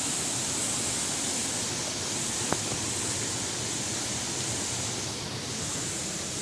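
Steady rushing noise of a waterfall, with one short click partway through.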